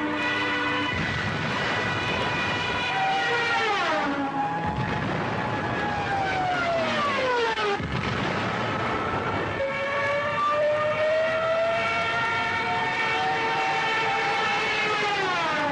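Air-raid sirens wailing, several pitched tones overlapping, rising slowly and then sliding down in pitch together about four seconds in, again near eight seconds and once more near the end, over a steady low drone.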